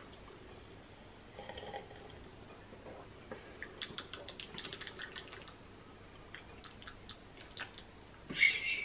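Faint small clicks and mouth sounds of people sipping and tasting a drink from cups, with a denser patch of clicking about halfway through. A short voice sound comes right at the end.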